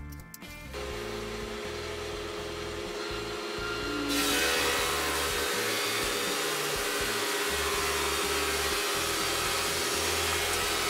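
A thickness planer starts up about a second in and runs with a steady hum. From about four seconds in it is planing a glued-up hardwood board of maple, cherry, walnut and ash strips, a much louder, steady cutting noise.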